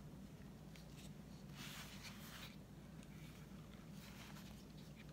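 Quiet rustling and rubbing of felt being pressed and smoothed by hand onto a hard gourd, with a few light taps and one longer rustle about two seconds in.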